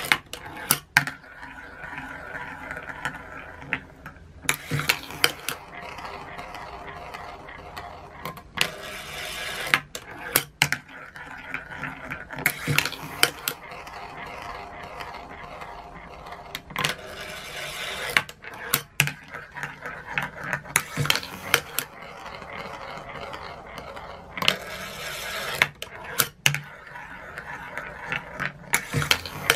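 Steel balls cycling through a homemade continuous Gauss (coil) accelerator: sharp metallic clicks and clacks as they strike rails and funnels, with roughly one-second stretches of rolling noise as they run around the plastic funnels, repeating every few seconds.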